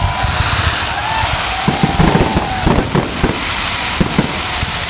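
Fireworks display: a loud, continuous crackle and hiss from rising comets and fountains, with frequent sharp pops and bangs from shells bursting overhead.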